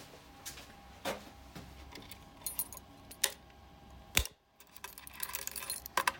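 A bunch of keys jangling and a series of sharp plastic clicks as a reset key is turned in a fire alarm manual call point to reset it. The loudest click comes a little after four seconds in, and the keys rattle in a quick cluster near the end.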